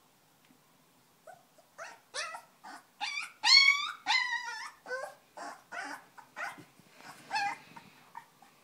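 Three-week-old Belgian Malinois–Groenendael cross puppy whimpering: a run of about a dozen short, high-pitched cries, loudest and longest in the middle, then trailing off.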